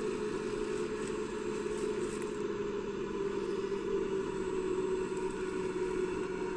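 Electric drive motors and gearing of a 3D-printed RC excavator running with a steady, even hum that shifts slightly in pitch partway through as the machine crawls on its tracks over gravel.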